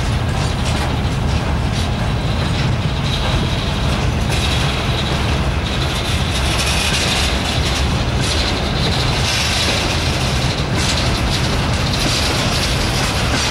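Covered hopper wagons of a freight train rolling past on the nearest track: a loud, steady rumble and clatter of wheels on rail, with a higher hiss that swells twice.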